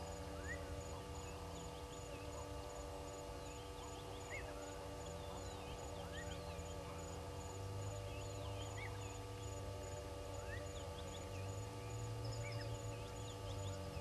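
Scattered short bird chirps and calls in the bush around a waterhole, over a steady low hum.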